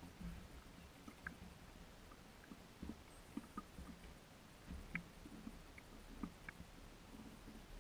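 Faint scattered knocks and clicks from a kayak and its fishing tackle while a hooked fish is played on a bent rod, with small low thumps now and then.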